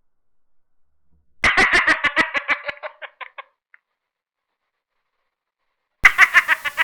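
A woman's laugh: a quick run of 'ha' bursts that starts loud and trails off over about two seconds. It is heard twice, about a second and a half in and again near the end, the same laugh repeated.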